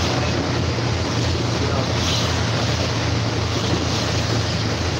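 Steady engine drone and road noise inside the cab of a moving truck, with wind rushing over the microphone.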